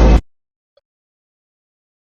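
A loud fraction of a second of bass-heavy music, cut off abruptly right at the start, as when a song clip is briefly played back or scrubbed in editing software. Near silence follows, with one faint tick a little under a second in.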